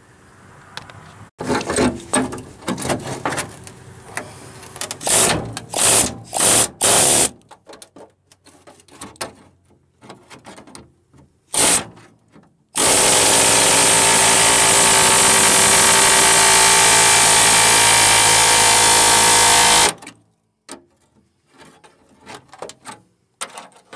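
Power tool working the steel floor pan to free it from the cab mount. First comes a run of short bursts, then one steady run of about seven seconds that cuts off abruptly.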